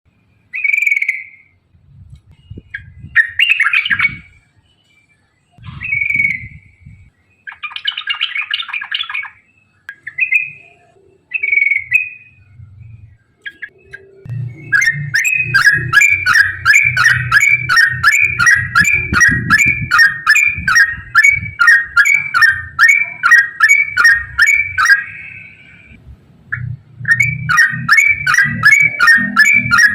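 Yellow-vented bulbul singing: scattered short chirps and phrases at first, then from about halfway a fast, unbroken run of repeated notes. The run breaks off briefly near the end and starts again.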